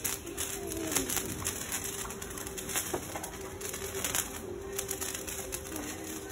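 Hand-held Diwali sparklers fizzing and crackling with rapid tiny pops, over a faint steady low note that dips in pitch now and then.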